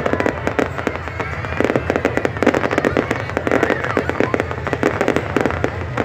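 Fireworks display: shells bursting and crackling overhead in a dense, rapid run of bangs and pops.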